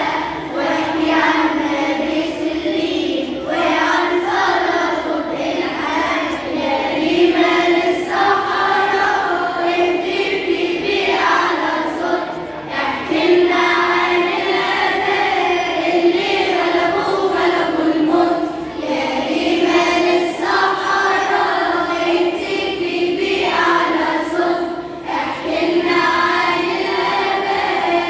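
Children's choir singing an Arabic Christian hymn together in sustained phrases, with a woman singing along into a microphone.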